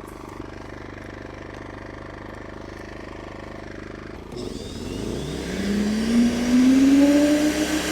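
Amerisun 2500W inverter generator running steadily, then about four seconds in an electric wood chipper is switched on, adding a loud hiss and a whine that rises in pitch as its motor spins up. The generator's engine picks up speed under the chipper's load, and the noise grows much louder.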